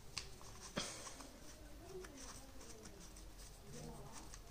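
Small hands tapping and rubbing on the stiff cardboard pages of a board book, with a sharp tap about a second in and faint scattered ticks and rustling after it.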